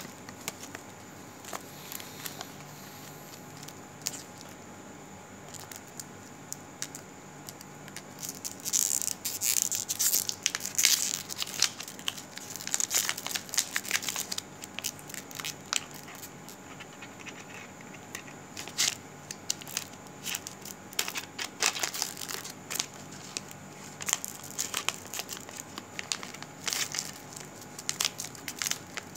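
Rustling and crackling handling noise on a phone's microphone, coming in irregular bursts of small crackles, busiest from about 8 to 15 seconds in and again in the second half.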